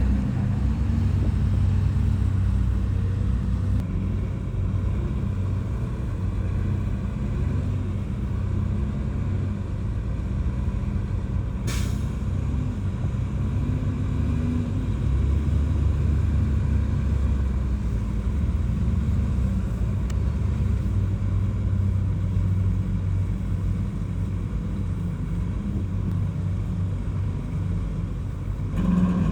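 Heavy diesel engine of a bulldozer running steadily with a deep rumble. A brief sharp sound cuts in about twelve seconds in.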